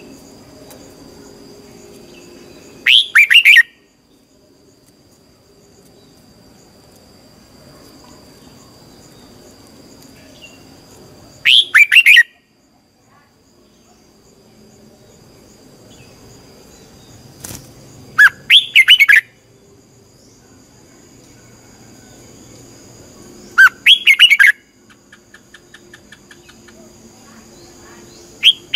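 Red-whiskered bulbul singing short, loud, warbled phrases, each under a second: four phrases several seconds apart, and a fifth starting at the very end. A faint steady high-pitched whine runs underneath.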